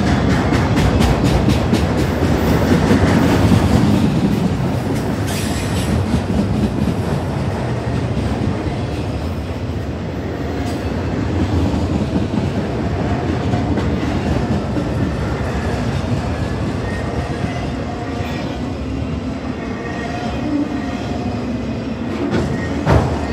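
Long freight train of autorack cars rolling past close by: a steady rumble of steel wheels on rail, with rhythmic clacking over rail joints in the first few seconds, faint wheel squeal, and a sharp knock near the end.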